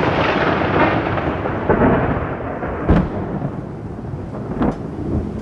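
Thunderstorm sound effect: a loud rolling thunder rumble that slowly fades, with a sharp thunder crack about three seconds in and a smaller one near the end.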